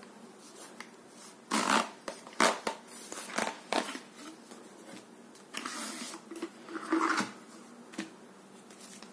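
Hands sliding the lid off a rigid black box: a run of sharp scrapes and knocks of box on box, then a longer rough scrape as the lid comes free, and a single knock near the end.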